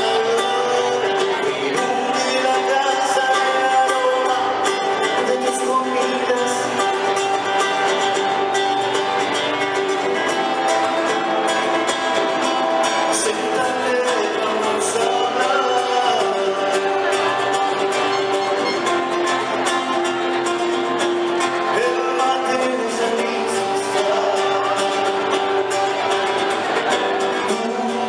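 Live performance of a Latin American song, with singing over the band.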